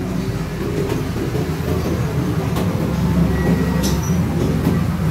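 A running engine's steady low rumble, slowly growing a little louder.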